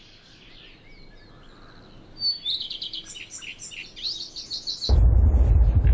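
Small birds chirping and singing, with quick trills and short whistles, faint at first and busier after about two seconds. Near the end a loud, deep rumble cuts in abruptly and drowns them out.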